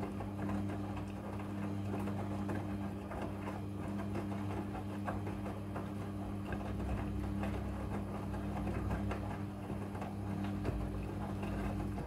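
Midea front-loading washing machine tumbling a wet load: a steady motor hum under the rustle and slosh of clothes and water turning in the drum.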